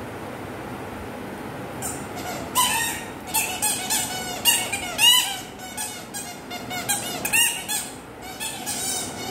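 Squeaky dog toy squeaked over and over as a Labrador puppy chews it: an irregular run of short, high squeaks that starts about two seconds in.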